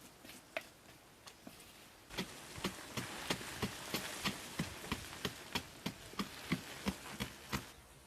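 A hand tool striking over and over, about three blows a second, starting about two seconds in and stopping shortly before the end, after a few scattered knocks.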